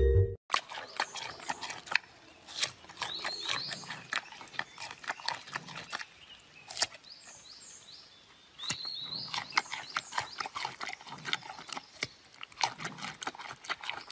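Giant panda biting and chewing a raw carrot: a run of irregular sharp crunches with quieter chewing between them, easing off for a moment about two-thirds of the way through.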